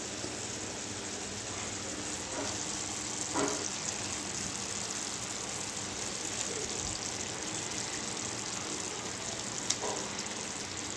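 Thick masala gravy simmering and softly sizzling in a kadai, a steady hiss, as pieces of lote fish are laid into it, with a couple of faint soft ticks.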